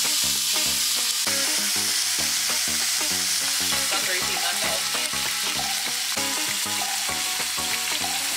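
Seasoned redfish fillet frying in extra virgin olive oil in a pan, sizzling steadily, with background music underneath.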